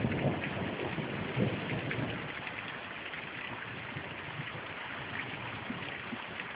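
Heavy rain falling steadily in a storm, a constant hiss with scattered drop ticks. A low rumble of thunder fades away over the first two seconds, swelling once more about a second and a half in.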